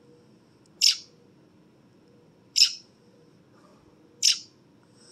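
Fledgling American robin calling from a perch on a finger: three short, sharp, high calls, evenly spaced about every second and a half to two seconds.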